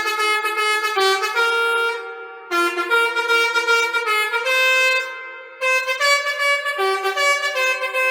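Basuri V2 multi-tone 'telolet' bus horn playing a melody, its horn trumpets sounding a quick run of stepping notes, with two brief breaks about two and five seconds in.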